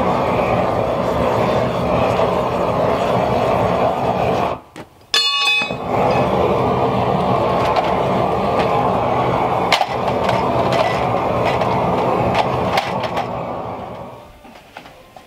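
Corded power tool running steadily, with a low hum under the noise. It cuts out briefly about five seconds in and fades away near the end.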